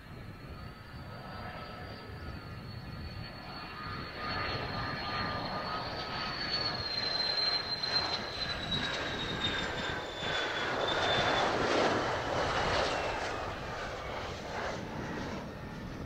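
Mitsubishi F-2's single F110 turbofan whining on final approach. The whine swells as the jet comes close, loudest in the middle and latter part, and its high tones slide down in pitch as it passes.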